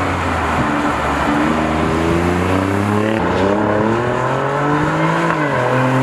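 Alfa Romeo Quadrifoglio's twin-turbo V6 under acceleration on track. The exhaust note climbs in pitch and drops sharply at gear changes, about three seconds in and again near the end.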